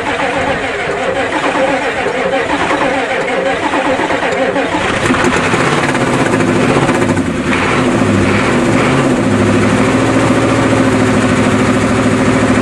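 Ford diesel truck engine cranking on the starter, its faulty solenoid bypassed with a booster cable, then catching about five seconds in. It runs unevenly with the revs shifting for a few seconds, then settles to a steady fast run near the end, held up on the throttle because it won't idle by itself yet.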